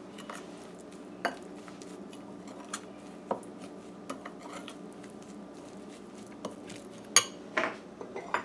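Metal spoon stirring and scraping a wet curry paste in an enamel bowl, with scattered clinks of spoon against bowl. The sharpest knocks come about a second in, about three seconds in, and in a quick cluster near the end.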